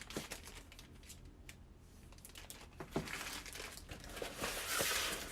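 Packaging crinkling and rustling as kit parts are handled: a few light clicks at first, then denser crinkling that grows louder in the second half.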